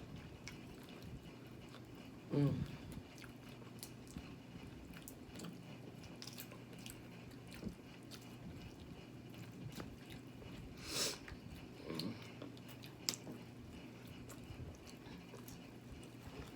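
A person chewing and biting seafood close to the microphone, with small wet clicks and smacks scattered throughout. There is a short louder sound about two and a half seconds in and a brief rustling swish near eleven seconds.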